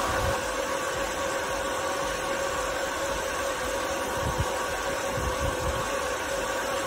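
Filabot filament extrusion line and spooler running while winding filament: a steady machine hum and hiss with a few constant whining tones, and irregular low bumps.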